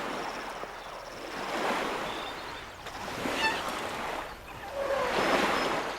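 Elephants splashing and wading in river water, the splashing swelling about two seconds in and again near the end.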